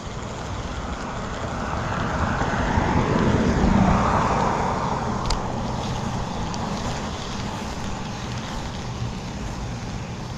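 A vehicle driving past, its noise swelling to a peak about four seconds in and then fading away, over a steady low rumble of wind on the microphone. A single faint click comes about five seconds in.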